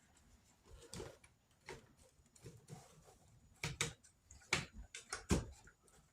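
Irregular clicks and light knocks of plastic Kirby vacuum cleaner parts being handled as rubber seals are fitted around a cover. There are a few sharper knocks about four to five seconds in.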